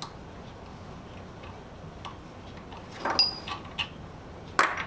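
Small metal clicks and clinks from a hand tap and tap wrench being worked and handled in a hot-rolled steel bearing mount held in a bench vise. A cluster of clicks with a brief ringing clink comes about three seconds in, and a sharper knock comes near the end.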